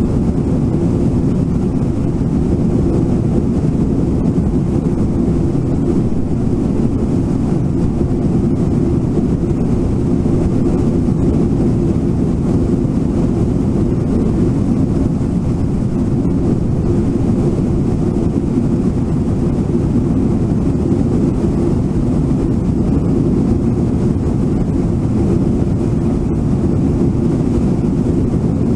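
Brooks River running fast over shallow rapids: a steady, low, rushing noise of water that never lets up.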